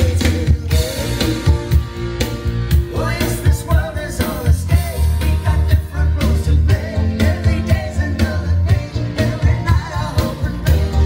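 A recorded song with a singing voice, drums and heavy bass, played loud through a Sanway Audio SF15 full-range loudspeaker as a test.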